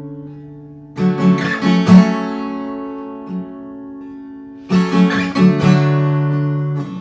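Acoustic guitar strumming chords that ring out and slowly fade, with a flurry of strums about a second in and another near five seconds.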